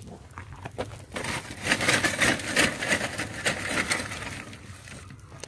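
Small metal fire shovel clinking and crunching through lumps of solid fuel while a homemade Stirling engine's firebox is stoked. There are scattered sharp clicks, and a dense run of crunching in the middle.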